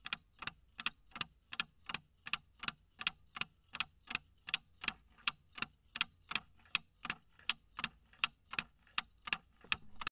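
Ticking-clock sound effect, even sharp ticks at about three a second, timing a ten-second countdown for answering a quiz question.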